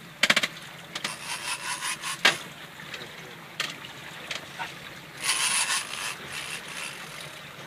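Fishing reel working as a hooked dentex is brought to the boat: short rasping bursts and clicks of line being wound in. A quick run of clicks comes just after the start, and a longer rasp about five seconds in.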